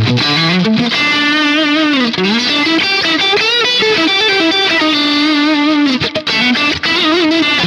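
ADOLA Primal Drip electric guitar played through distortion, a single-note lead line with string bends and vibrato.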